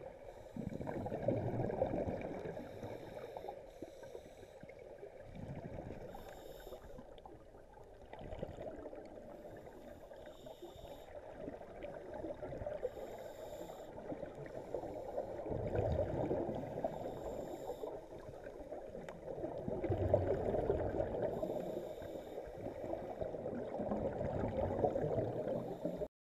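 Scuba divers' regulator bubbles heard underwater in a pool: a muffled gurgling and bubbling that swells and fades every few seconds.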